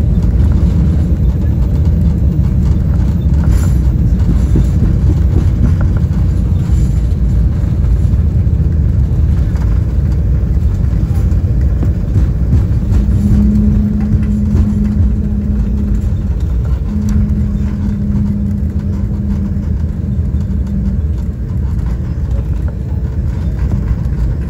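Cabin noise inside an Embraer E195 airliner with its GE CF34 turbofans: a steady, loud rumble of engines and airflow. In the second half a steady low hum comes in twice, for about three and four seconds.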